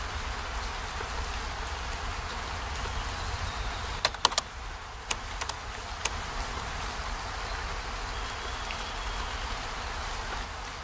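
Steady hiss of heavy rain falling, with a low rumble underneath. About four seconds in, a handful of sharp drip clicks come over two seconds, several in quick succession.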